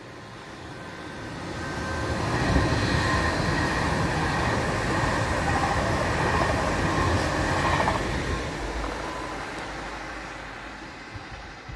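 Passenger train passing beneath. The rumble of its wheels on the rails builds over the first two seconds or so, stays loud for about six seconds with a faint steady whine, then fades away.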